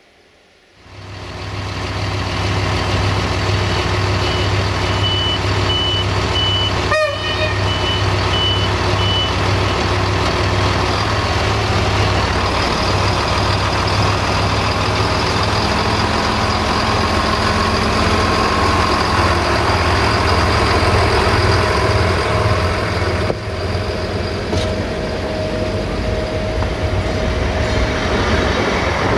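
Two coupled Siemens Desiro diesel railcars running past close by, their underfloor diesel engines giving a steady low drone over the rumble of wheels on the rails. The sound starts suddenly about a second in. A short run of high beeps comes about five seconds in, and a brief pitched sound about seven seconds in.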